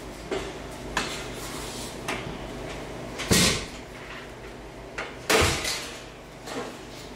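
Sheet-steel store shelf knocking and clanking against its slotted metal upright as it is fitted, with a few light knocks and two louder bangs about three and five seconds in.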